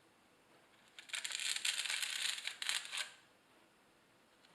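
A trowel scraping mortar across the back of a thin brick tile, about two seconds of scraping starting about a second in.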